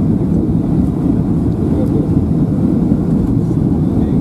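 Steady low rumble of a jet airliner's engines and rushing airflow, heard inside the passenger cabin.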